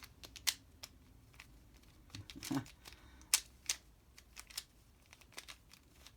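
Plastic twisty puzzle cube being turned by hand through a last-layer permutation algorithm: a run of sharp, irregular clicks and clacks as the layers turn and snap into place.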